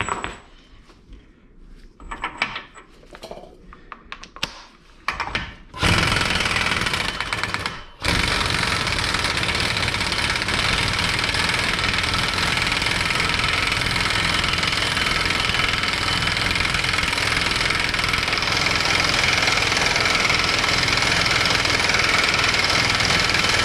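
Impact wrench hammering on a tight front axle nut. It gives a short burst about six seconds in, stops briefly, then rattles without a break until just before the end. Light clatter of tool handling comes before it.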